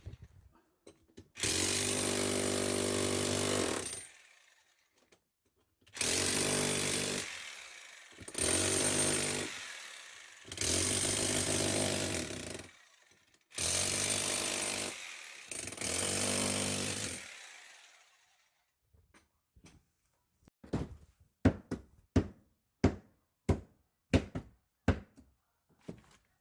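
Handheld electric power tool run in six bursts of a few seconds each, each winding down as the trigger is released. Near the end, a run of sharp knocks comes about two a second.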